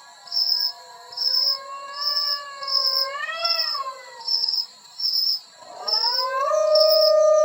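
A dog howling in long, drawn-out notes that slide in pitch, swelling upward about three and a half seconds in and again with a new howl near the end. Underneath, an insect chirps loudly at an even pace, a little more than once a second.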